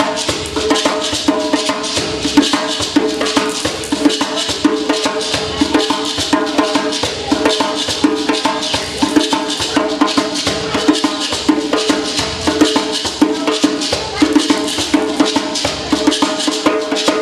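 Live hand percussion: a djembe struck with bare hands alongside a pair of hand shakers, keeping a steady, fast rhythm.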